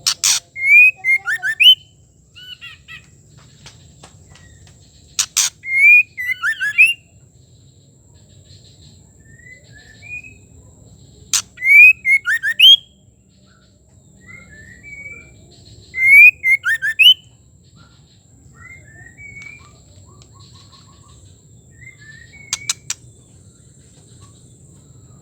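Female white-rumped shama calling: a sharp click followed by a quick string of short, rising and falling whistled notes, repeated about every five to six seconds, with softer short notes between.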